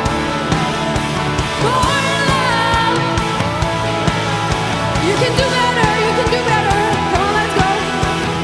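Live rock band music: a bending, gliding lead melody over steady drums and bass, with no lyrics.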